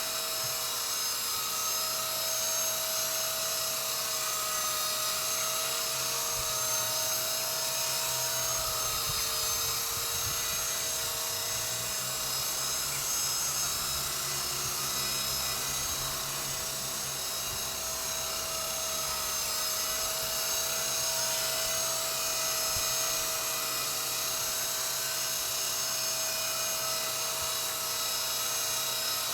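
Walkera V120D02S micro RC helicopter hovering: the steady high whine of its electric motors and spinning rotors, the pitch wavering slightly.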